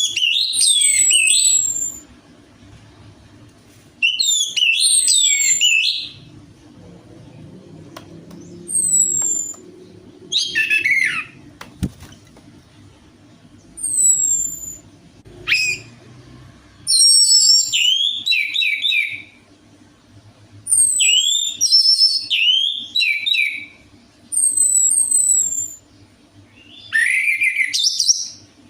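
Orange-headed thrush singing: a string of short, rich phrases of high whistled notes, many sliding downward, repeated every couple of seconds. This is a lure song played to coax caged thrushes into singing.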